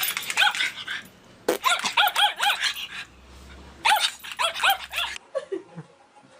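A dog barking in quick runs of short, high yapping barks, three bursts in all, then a few lower falling whines near the end.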